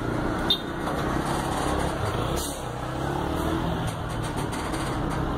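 Diesel truck engine running at low speed as the truck and its box trailer creep forward through a tight manoeuvre. A brief high-pitched chirp comes about half a second in.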